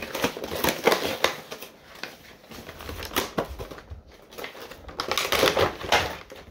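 Action-figure packaging being opened by hand: an irregular run of sharp clicks and scrapes.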